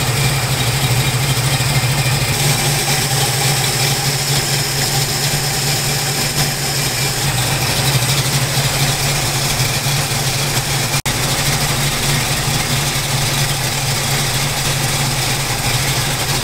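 Ford V8 engine idling steadily, with its base ignition timing set to 10 degrees before top dead center.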